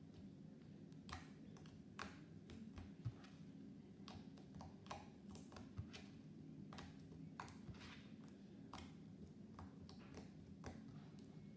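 Slime being kneaded and pressed with the fingers on a tabletop, giving faint, irregular little clicks and pops. A faint steady low hum runs under them.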